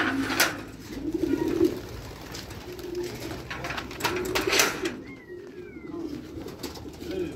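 Homing pigeons cooing repeatedly in a loft, with a few brief rustling noises between the coos and two faint falling whistles about five seconds in.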